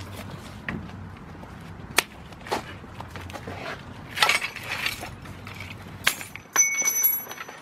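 A truck wheel being fitted back onto the hub studs, with scattered knocks and metal clinks as the wheel seats and the lug nuts are handled. Near the end comes a quick run of clinks, the last of them ringing briefly like loose metal parts.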